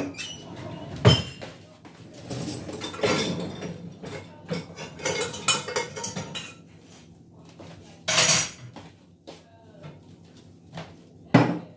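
Dishes and cutlery clinking and clattering as clean dishes are lifted out of a dishwasher's racks, with three louder knocks: about a second in, about eight seconds in and near the end.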